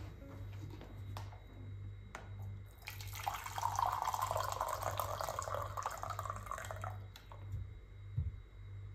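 Hot water poured from a vacuum jug into a glass mug: a steady splashing pour lasting about four seconds. A few light clicks come before it and a dull knock near the end as the jug is set back on the table.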